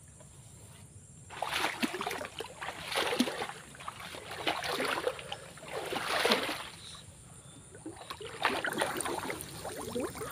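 Water sloshing and swishing as people wade through waist-deep swamp water, a surge of splashing with each stride, roughly every second and a half, starting about a second and a half in.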